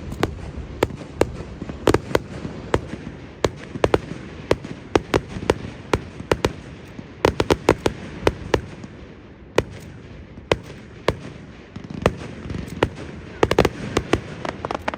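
Fireworks display: a rapid, irregular run of sharp bangs and crackles from bursting aerial shells, several a second in quick clusters, over a continuous rumble of launches and echoes.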